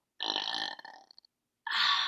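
A woman burping twice: a first belch of about a second, then a second, louder one starting near the end.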